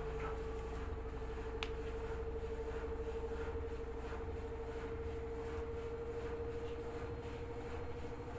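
LG F4R3VYW3WE direct-drive front-loading washing machine running a wash cycle: a steady motor whine over a low hum, with faint regular pulses and one small tick about one and a half seconds in.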